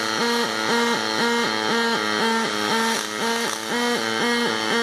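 Pulsed MIG welding arc on aluminum from a Stel Max 403S, running ALSi5 wire under argon. It makes a steady pitched buzz that swings between two pitches about twice a second.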